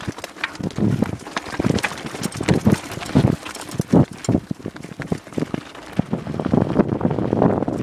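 Downhill mountain bike rattling and clattering over a rocky trail at speed, with irregular hard knocks as the tyres strike rocks, over a rushing haze of wind on the microphone.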